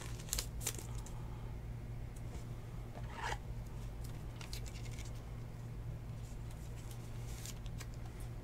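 A trading card in a soft plastic penny sleeve being handled and slid into a rigid plastic top loader: faint, scattered scratchy rubs and light ticks of plastic over a low steady hum.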